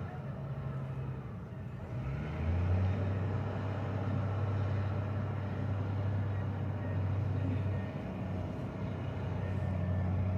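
Diesel engine of a large wheel loader running, a steady low hum; it revs up about two seconds in, eases off later, then picks up again near the end.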